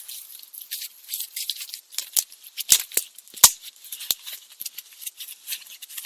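Dry firewood crackling and snapping: a dense run of irregular crackles with a few sharp snaps, the loudest about halfway through.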